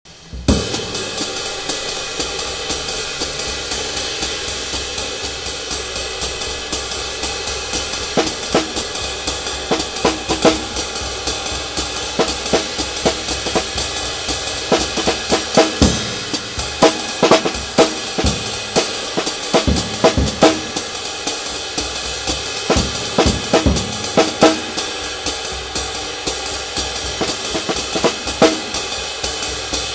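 Drum kit played with sticks, Zildjian cymbals included: a continuous cymbal wash under irregular snare and bass drum strokes, starting abruptly just after the opening.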